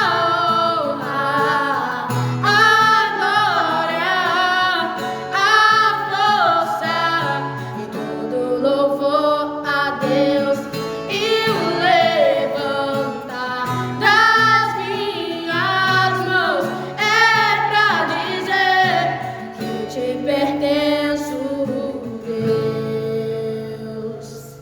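Gospel worship song sung to acoustic guitar, with held, gliding sung notes over the strummed accompaniment, fading out near the end.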